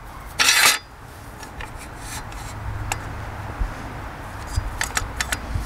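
Metal-on-metal handling of the Logosol Timberjig chainsaw-mill bracket as it is adjusted on the chainsaw bar: a short scraping rattle about half a second in, then a few light clicks and clinks.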